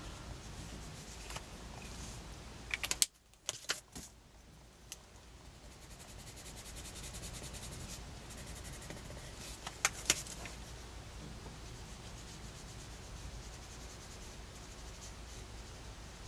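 Faint scratching of a watercolour pencil rubbed across sketchbook paper. A few sharp taps come about three seconds in and again around ten seconds.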